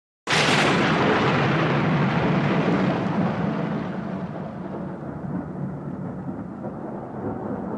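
Thunder sound effect: a sudden loud crack that rolls into a long rumble. The hiss fades over the next few seconds while the low rumble goes on.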